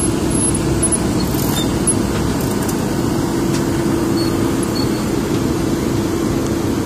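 A heavy diesel engine running steadily, with a constant hum over a low rumble.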